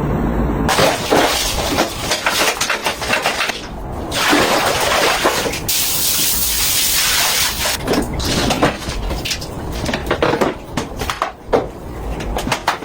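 Household cleaning sounds: objects clinking and knocking as they are handled, with a few seconds of steady hiss around the middle.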